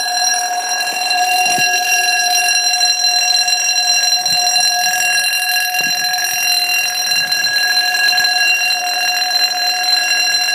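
Level crossing warning alarm sounding one steady, unbroken tone, an old-style alarm sound.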